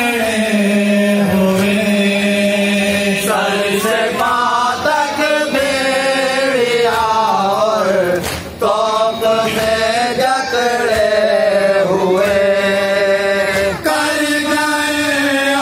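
A man chanting a noha, a Shia mourning lament, into a microphone, in long held melodic lines that waver and glide. There is a short break about eight seconds in.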